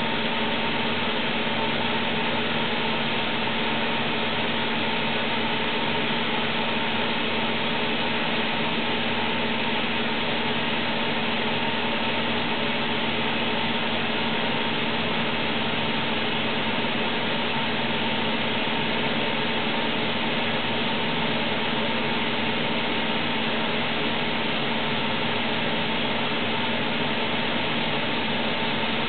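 Toshiba Machine ULC100S ultra-precision NC lathe running steadily: an even mechanical noise with a constant hum and a fainter whine held at one pitch.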